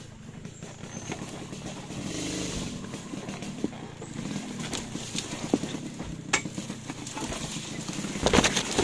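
A vehicle on the move, with a steady low rumble and scattered knocks and rattles, and a louder cluster of knocks near the end.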